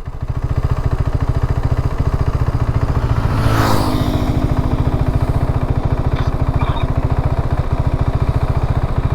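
Motorcycle engine running with a steady, even exhaust beat. A brief rushing swell comes about three and a half seconds in.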